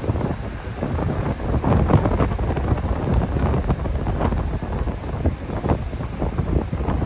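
Wind buffeting the microphone on a moving bicycle, gusting unevenly as a deep rumble.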